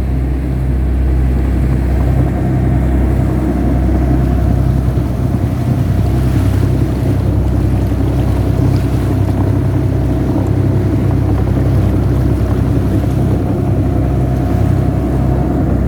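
A fishing boat's engine running steadily: a deep, even drone with a thin steady whine above it.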